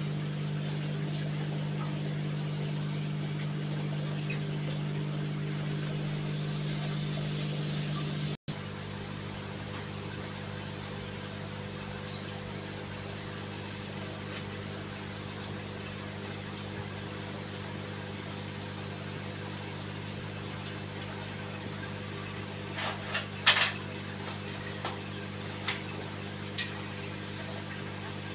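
Steady low electrical hum of aquarium pumps and filters, with a brief dropout about eight seconds in after which it runs a little quieter. A few short sharp clicks near the end.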